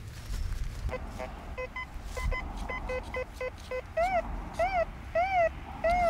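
Metal detector audio: short beeps at about four a second from about a second in. From about four seconds these give way to four tones that each rise and fall in pitch, the detector's response to a buried target as the coil passes over it.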